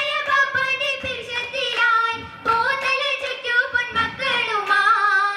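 Girls' voices singing an Oppana song (Mappila pattu) in unison through a microphone, held notes gliding up and down, with the dancers' hand-claps falling every second or so.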